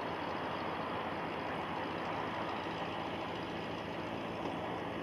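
Boeing 747-400 freighter's four jet engines running as the jet rolls along the runway, a steady, even rush of engine noise.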